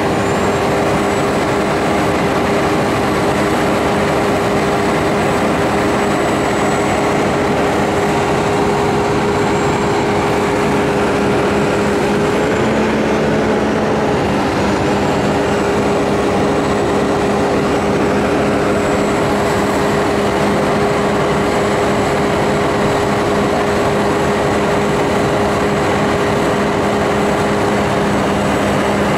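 Cat 350L excavator's diesel engine and hydraulics running steadily under load, a constant hum with a steady whine, lifting the back end of a heavy bridge girder. The pitch wavers briefly about 12 to 14 seconds in.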